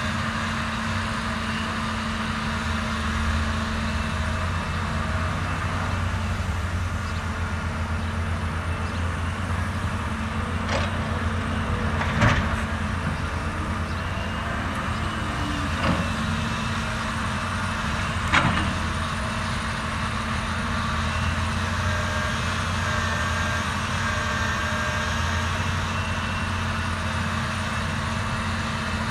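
CAT 320D RR hydraulic excavator's diesel engine running steadily while it works, with four sharp knocks, the loudest about twelve and eighteen seconds in.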